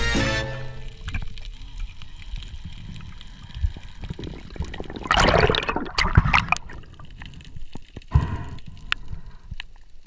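Water noise on a diver's camera: a low underwater rumble with scattered clicks, then a loud splashing rush about five seconds in as the camera breaks the surface, and a shorter splash about three seconds later.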